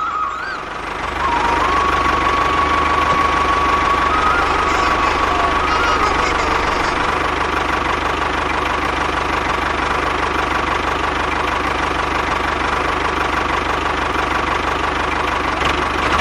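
Tractor engine running steadily. Its level dips just before a second in and then comes back up and holds.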